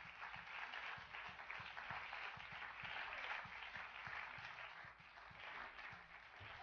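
Studio audience applauding, a steady dense clapping as a guest walks on.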